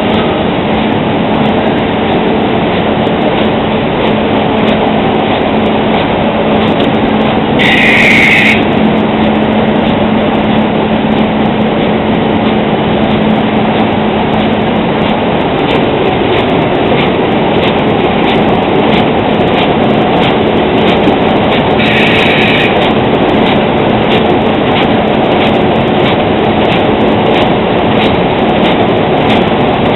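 Saddle-stitching line with its stacker running: a steady mechanical clatter over a constant hum, with regular clicks as the machine cycles. Two brief higher-pitched bursts come through, about eight seconds in and again near the twenty-two second mark.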